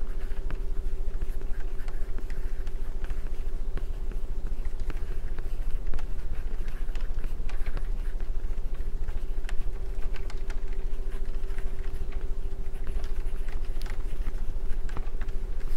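Steady background hum and low rumble with a noisy hiss, dotted with scattered faint clicks and ticks.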